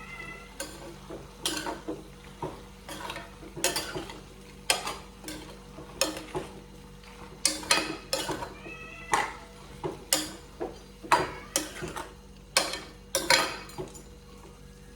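A spoon scraping and clanking against a pan as meat is stirred over the flame, in irregular knocks about once or twice a second, with a faint sizzle underneath. A cat meows briefly twice, at the start and about eight seconds in.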